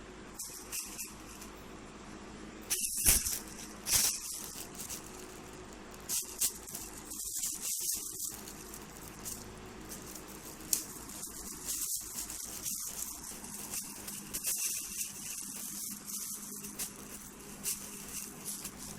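Crinkly plastic rustling in irregular bursts as a kitten plays with it, with two louder crackles about three and four seconds in.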